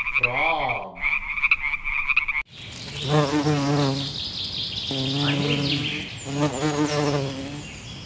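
A frog calling in a fast, steady pulsing trill, cut off abruptly about two and a half seconds in. Then a mass of honeybees buzzing on the comb, the wavering hum swelling and fading three times.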